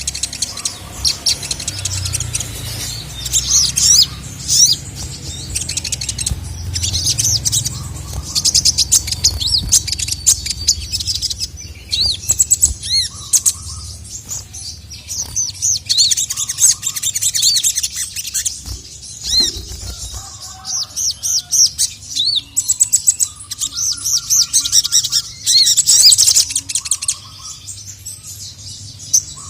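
A sogon (sogok ontong), a sunbird-family cage bird, singing full out: loud, rapid bursts of high chirps and quick trilling glides repeated in phrases. This is the call of a male sogon.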